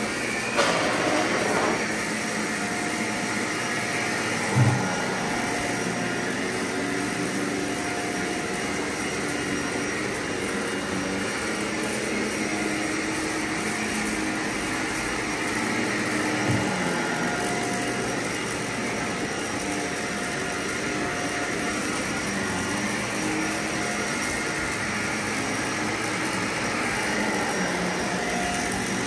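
Vacuum cleaner running steadily, with a brief knock about five seconds in.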